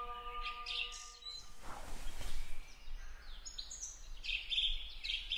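A held, amplified note with a stack of harmonics, the end of the call to prayer from the mosque loudspeaker, fades out in the first second. Then a brief rush of noise and scattered high bird chirps.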